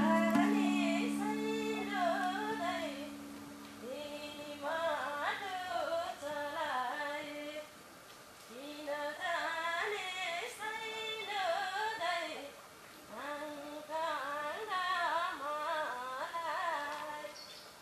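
A woman's voice singing a slow, ornamented melody in four long phrases. An acoustic guitar chord rings under the first phrases and dies away.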